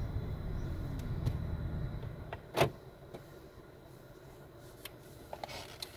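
Street traffic: a vehicle's low rumble fades away over the first two and a half seconds. Then a single sharp knock comes, the loudest sound, followed by quieter street noise with a few faint clicks near the end.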